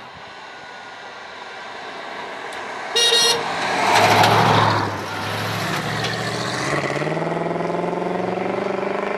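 1936 Ford pickup with a 350 small-block V8 crate engine driving past: a short horn toot about three seconds in, a loud rush as it goes by a second later, then the engine note rising as it accelerates away.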